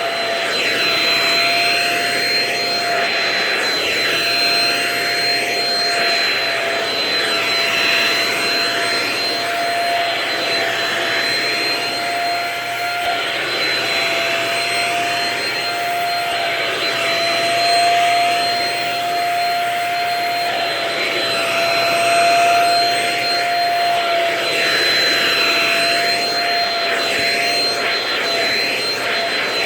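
A vacuum cleaner running steadily with a constant whine, used on couch upholstery. Its hiss rises and falls every couple of seconds as the nozzle is worked back and forth over the fabric.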